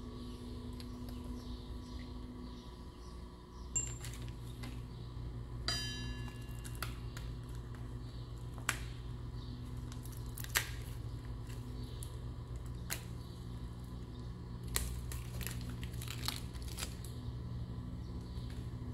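Light metallic clinks and taps as engine bearing caps and bearing shells are handled, one ringing briefly about six seconds in, over a steady low hum.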